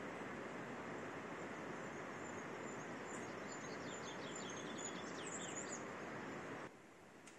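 Steady outdoor rushing noise with a small bird singing a run of quick, high chirps about halfway through; the rushing noise drops away suddenly near the end.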